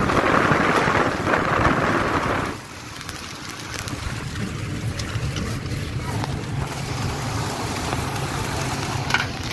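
A moving vehicle in heavy rain: a loud rush of wind and rain for the first two and a half seconds, then it drops away, leaving a steady low engine hum and road noise.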